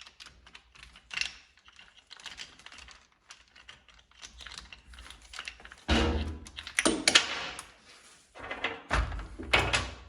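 Small metal clicks, taps and scrapes of a tool and loose metal fragments against the casing of a blown Yamaha R6 engine, as broken piston pieces are fished out. There are louder bouts of rattling and knocking about six seconds in and again near nine seconds.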